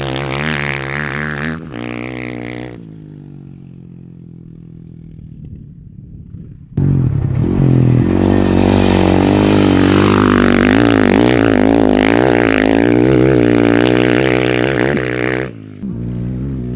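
Dirt bike engine running steadily. It drops to a quieter, lower note for a few seconds, then comes back loud suddenly about seven seconds in, with a brief dip near the end.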